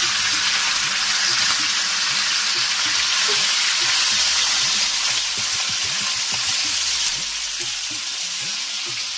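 Raw boneless chicken pieces sizzling loudly in hot ghee in a metal karahi as they are stirred with a spatula; the sizzle eases a little near the end.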